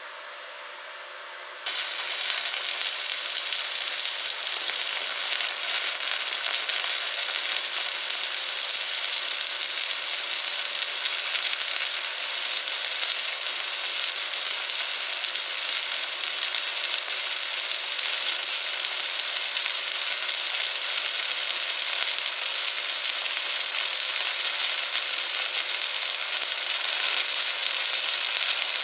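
An electric welding arc strikes about two seconds in and burns steadily with a dense crackling sizzle.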